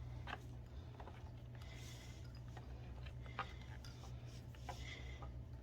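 Faint, scattered clicks and light knocks of plastic parts being handled and pushed into place in a Sicce Whale 500 canister filter, one knock slightly louder about three and a half seconds in, over a steady low hum.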